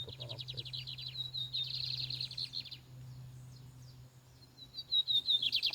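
Lined seedeater (bigodinho) singing two song phrases, each opening with a few short clear notes that run into a fast rattling trill; the first phrase is about three seconds long, the second starts near the end. A steady low hum lies underneath.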